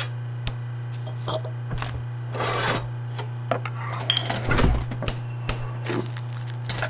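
Kitchen sound effects in quick succession: short clinks and clatters of dishes, pots and cutlery, with scrapes and rubbing sounds in between, over a steady low hum.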